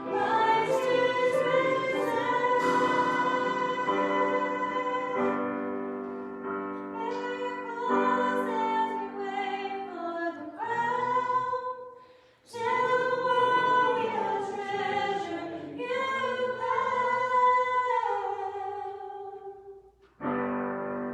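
Worship song sung live by several voices, a woman's voice among them, over piano-style keyboard chords. The music drops out briefly about twelve seconds in, ends near the end, and a single held keyboard chord follows.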